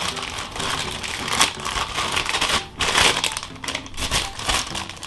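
Plastic mailer packaging crinkling and crackling as hands tear it open and crumple it, with louder crunches about a second and a half in and again around three seconds in.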